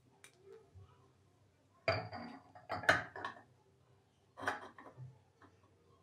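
Metal parts of a cast-iron hand coffee grinder clinking and knocking together as the front housing is fitted over the burr onto the body. The clatter comes in three short clusters, about two, three and four and a half seconds in.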